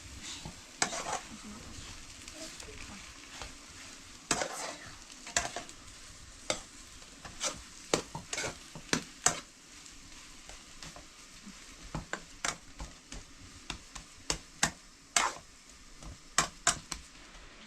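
Irregular sharp clicks and scraping knocks, sometimes in quick pairs, over a faint steady hiss.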